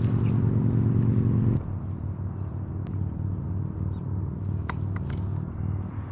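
An engine running at a steady pitch. Its level drops suddenly about a second and a half in, then it runs on more quietly.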